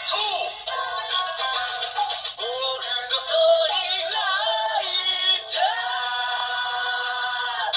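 Kamen Rider Saber DX Holy Sword Driver toy belt playing a single-book sound effect after a Wonder Ride Book is scanned: a sung, synthesized Japanese-style chant with music from the toy's speaker. A short break comes about five and a half seconds in, then a long held sung note.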